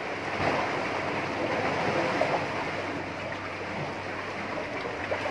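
Sea water washing steadily, an even rushing noise with no breaks.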